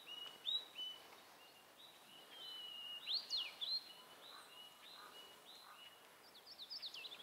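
Small songbird singing: a series of short whistled notes repeated about twice a second, with a quick run of falling notes near the end.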